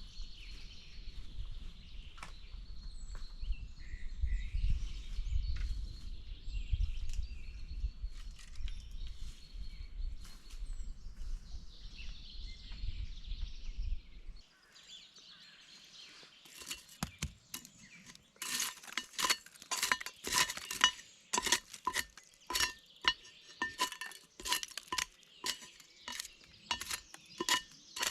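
Metal cookware and utensils clinking: a run of sharp, ringing strikes, roughly one or two a second, through the second half. Before that, a low rumble cuts off abruptly about halfway.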